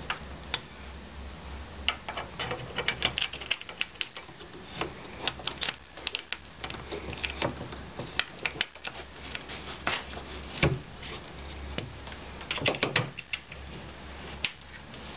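Irregular metal clicks and taps of an Allen key being fitted into and turned in the bolts that fasten a bunk bed's ladder, over a low steady hum.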